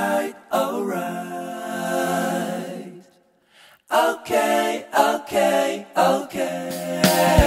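Background music of a cappella singing: voices holding and sliding between notes, with a short break about three seconds in.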